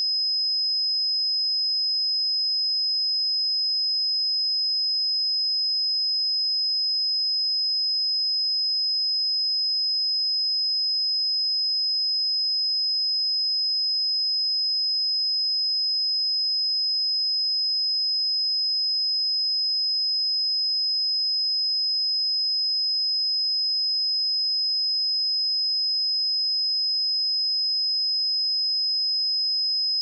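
A pure 5072 Hz sine-wave test tone, a single high-pitched steady whistle-like pitch held unchanged at constant level.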